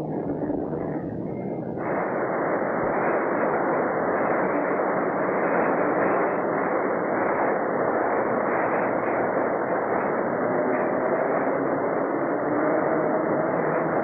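Third Avenue elevated train running over its steel structure: a loud, steady rushing roar that cuts in abruptly about two seconds in.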